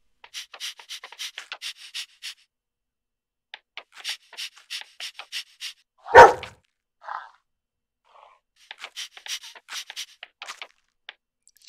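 English bulldog panting quickly, about five breaths a second, in three spells, with one loud bark about six seconds in.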